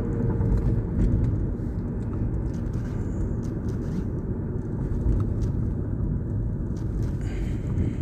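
Steady low rumble with a few faint clicks over it.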